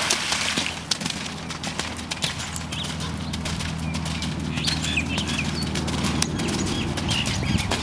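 A horse's hooves cantering through a waterlogged sand arena: a splashing rush through standing water at the start, then a run of quick, uneven hoofbeats on the wet footing.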